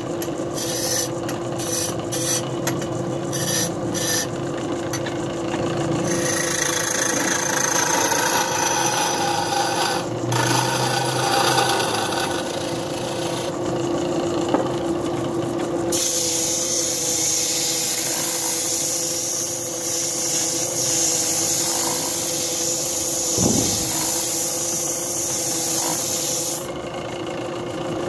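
Belt-driven wood lathe running with a steady hum while a hand chisel cuts into the spinning wooden blank, turning grooves into it. The cutting comes as short stop-start scrapes in the first few seconds, then as long, continuous scraping, loudest in the second half.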